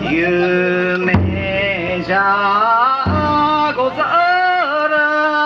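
Bon odori ondo singing: a lead singer holds long, wavering, melismatic notes, with a single taiko drum stroke about a second in.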